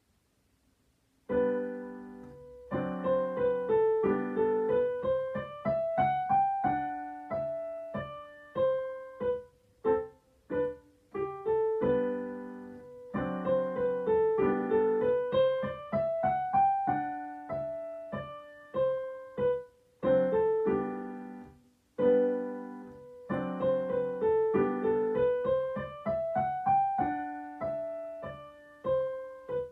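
Digital piano playing a beginner lesson piece: short struck notes and repeated chords under a melody that climbs and falls back, the same phrase coming round three times. It begins about a second and a half in.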